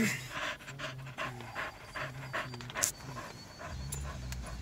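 A frightened dog panting quickly, about three breaths a second.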